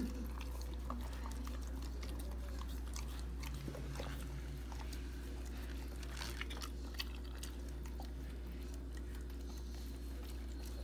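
German Shepherd eating shredded turkey and vegetables from a stainless steel bowl: chewing, heard as a string of short, irregular mouth clicks. A steady low hum runs underneath.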